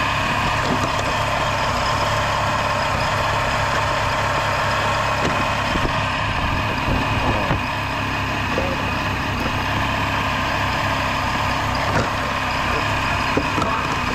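Car engine idling steadily just after a jump start from a cold-drained battery, with a few light knocks and clicks in the middle and near the end.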